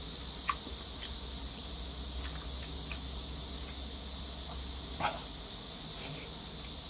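Eating noodles with wooden chopsticks from a ceramic bowl: a few small clicks and mouth noises, the loudest about five seconds in, over a steady high hiss.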